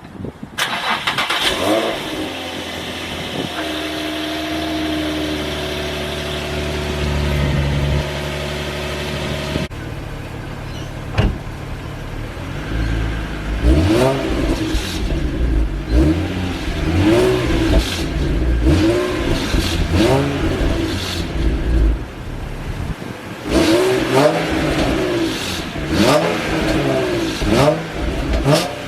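Exhaust of a 2005 Nissan 350Z's VQ35DE V6, running through HKS Hiflow catalytic converters and a Z1 Y-pipe. It starts and idles steadily, then, after an abrupt cut about ten seconds in, it is revved again and again in short blips. The owner says there is a slight exhaust leak where the new Y-pipe meets the warped stock piping.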